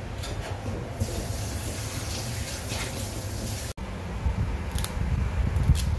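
Water running for about three seconds as a steady hiss, stopping suddenly. Then soft rustling and a couple of small snaps as little leaves are stripped from their stems into a plastic colander, over a low rumble.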